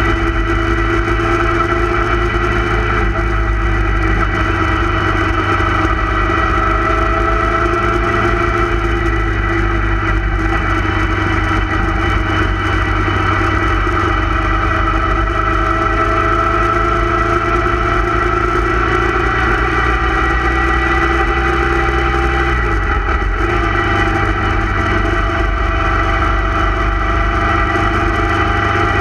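Motorcycle engine running steadily while riding along, heard from the rider's own bike; its note drops a little after three-quarters of the way through.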